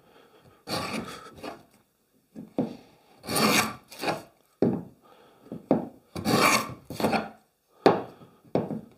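Router plane paring the floor of a housing joint in tulipwood: the blade shaves the wood in a series of short strokes, about eight, some longer than others, slicing through easily.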